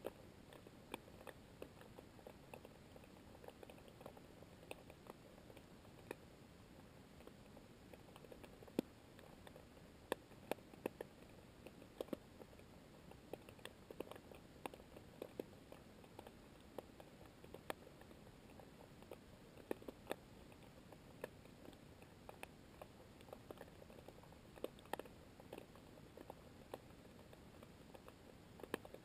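Underwater sea ambience: irregular sharp clicks and crackles, a few a second and some much louder than others, over a faint steady hiss.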